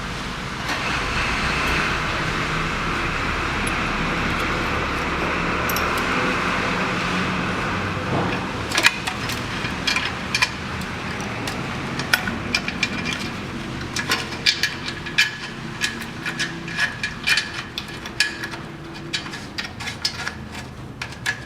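A steady noise for about the first eight seconds, then a run of irregular metallic clicks and clinks as new bolts with large washers are started by hand into the mounts of the car's exhaust heat shield.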